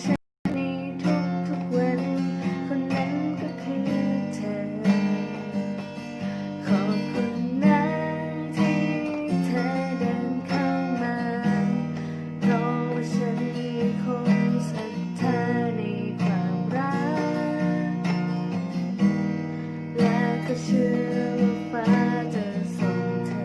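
Acoustic guitar strummed in a steady rhythm, playing the chords of a slow song, with a split-second dropout to silence just after the start.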